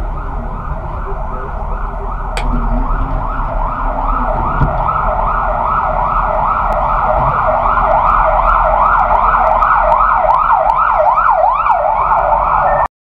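Emergency vehicle siren on a passing response car, a fast repeating rising wail at about two sweeps a second that grows louder as it approaches, then cuts off abruptly near the end.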